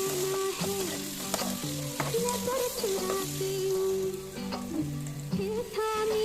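Food frying and sizzling in a pan while being stirred, presumably sabudana khichdi cooking, under background music with a stepping melody and bass line.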